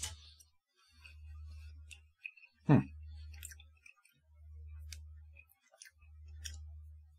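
Faint scattered clicks and mouth sounds of a man chewing a small candy, with one brief louder sound that drops in pitch a little under three seconds in. Under it a low hum comes and goes in regular pulses about every second and a half.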